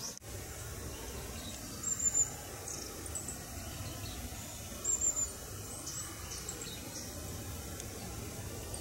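Small bird calling: two short runs of high, thin chirps, about two and five seconds in, with fainter chirps between, over a steady low outdoor rumble.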